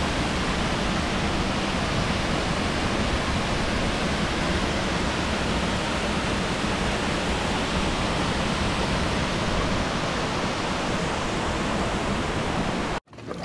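Waterfall, its falling water rushing in a steady, dense noise that cuts off suddenly near the end.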